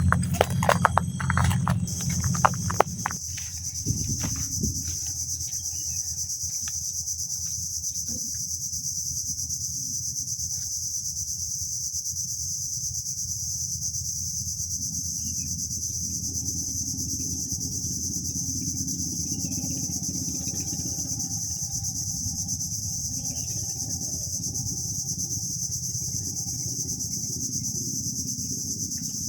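Steady high-pitched chorus of insects, with a low steady rumble underneath. Irregular knocks and clatter in the first three seconds.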